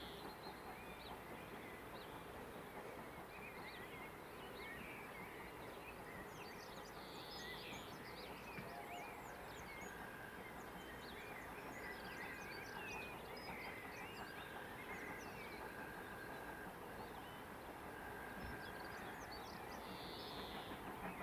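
Several birds chirping and singing over a faint, steady background of outdoor noise, with one bird repeating a short, even whistled note every second or two in the second half.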